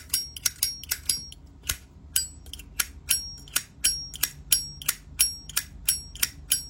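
Zippo lighter's hinged metal lid flicked open and snapped shut over and over: sharp metallic clicks with a bright ringing ping, about three a second.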